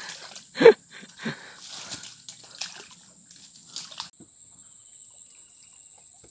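Sloshing and splashing of a person wading through shallow swamp water among branches, with a brief vocal sound near the start. A little after halfway it gives way to a steady, faint, high insect drone.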